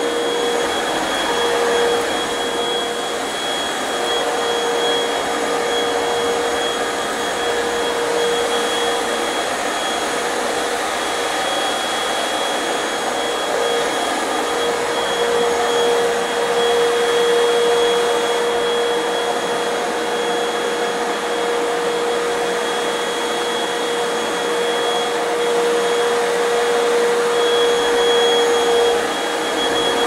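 Corded upright vacuum cleaner running on carpet: a steady motor sound holding one pitch, swelling slightly in level as it is pushed back and forth.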